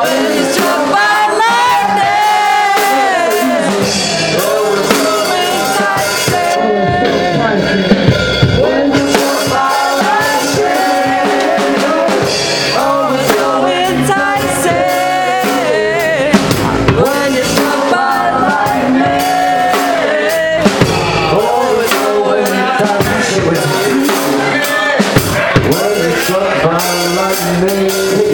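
Live band playing loudly: electric guitar and a drum kit with a singer's voice over them, one continuous jam.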